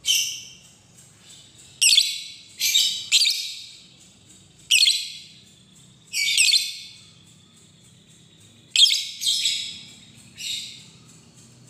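Lovebird giving short bursts of shrill, chattering calls, about ten in all, some in quick runs of two or three, with short pauses between.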